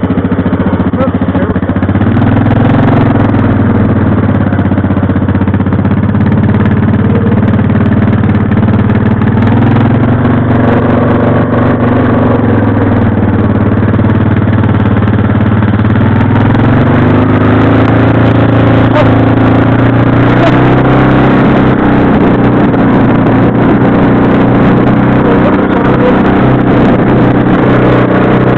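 ATV engine running while riding, its pitch rising and falling several times with the throttle.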